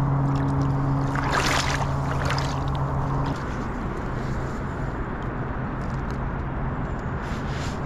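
River water rushing and sloshing around a wading angler's legs, with a splashy stretch between about one and two and a half seconds in. A steady low hum underneath stops suddenly a little over three seconds in.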